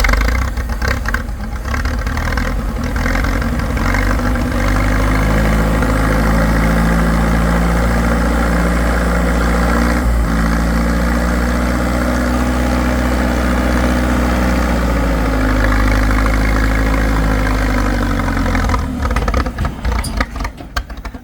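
Tractor engine running loudly and close, just after starting, its speed changing slightly about halfway through and again a few seconds later before it becomes uneven and drops away near the end.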